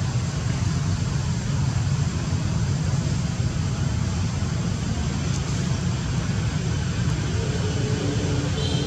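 Steady low rumble with a fainter hiss above it, much like distant road traffic. Faint held higher tones come in near the end.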